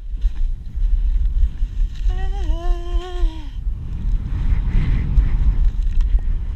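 Steady low rumble of wind buffeting the camera's microphone while riding downhill through snow. About two seconds in, a person's voice holds one long note for about a second and a half, dipping briefly in pitch before levelling off.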